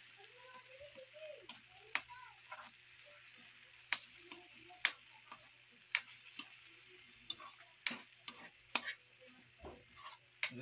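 A metal spatula stirs a thickening tomato-and-cornstarch sauce in a wok, with sharp irregular clicks and scrapes of metal on the pan about once a second. Under them the sauce sizzles and bubbles over the gas flame.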